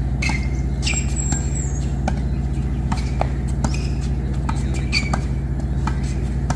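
Tennis rally on a hard court: sharp pops of the racket strings striking the ball and the ball bouncing, recurring every second or so, mixed with short high squeaks of shoes on the court surface, over a steady low hum.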